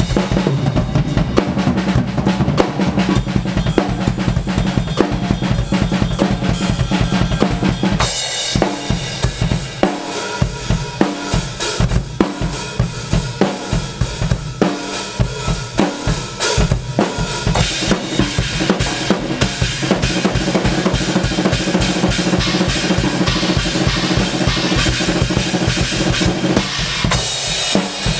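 Two drum kits played at the same time in a fast, loud drum jam: a dense stream of snare, bass drum and cymbal hits. The groove changes about eight seconds in.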